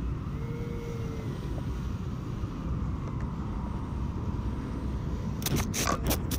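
Steady rush of air over an FPV flying wing as it glides in low to land, then a cluster of sharp knocks and scrapes about five and a half seconds in as it touches down and skids into the grass.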